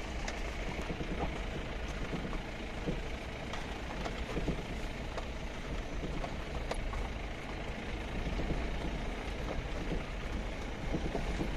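Vehicle driving slowly over a rutted dirt track, heard from inside the cab: a steady low engine and road rumble with scattered small knocks and rattles from the bumps.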